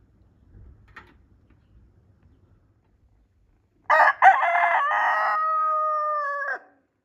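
Rooster crowing once, loudly, starting about four seconds in: a choppy opening, then a long held note that cuts off sharply.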